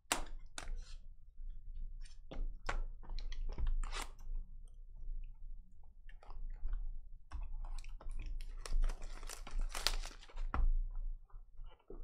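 Crinkling and crackling of shrink-wrap and cardboard as a sealed trading-card hobby box is cut open with a box cutter and unwrapped. A scattering of sharp clicks and taps, densest about nine to ten seconds in.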